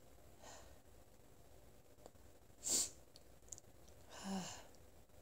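A woman's nose and breath: a faint breath, then one short, sharp sniff about two and a half seconds in, and a short voiced sigh near the end. The sniffles come from powder she has sniffed up her nose to make herself sneeze.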